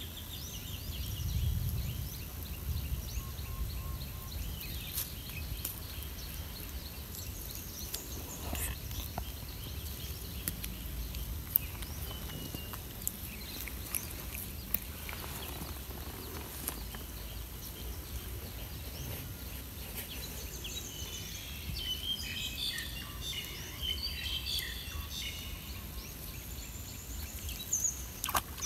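Outdoor ambience: a steady low rumble with scattered high bird chirps, busier about three-quarters of the way through, and a few sharp clicks.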